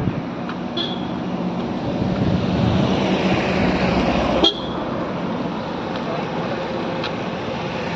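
A motor vehicle running close by with road noise that swells towards the middle, and two short high beeps of a horn, about a second in and again halfway through, the second with a sharp click.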